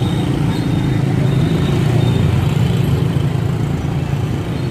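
Motorbike engines and street traffic running steadily, a low continuous hum.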